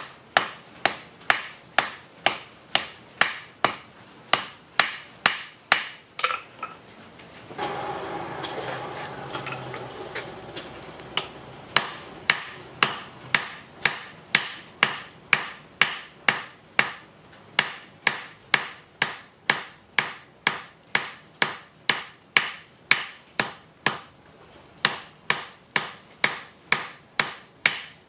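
Hand hammer forging a red-hot rail spike on a mild steel block anvil, striking about twice a second. About six seconds in the hammering stops for several seconds and a steady rushing noise is heard, then the even hammering starts again.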